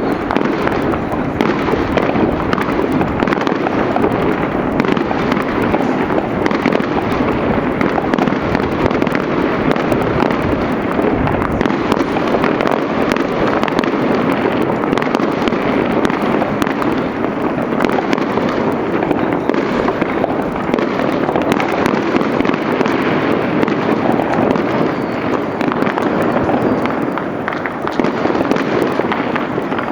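Fireworks going off without a break: a dense, continuous crackle of many overlapping bangs and pops.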